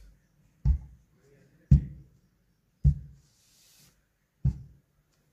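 Electric clothes iron set down on a carpeted floor, four dull thuds about a second or so apart, with a short hiss near the middle.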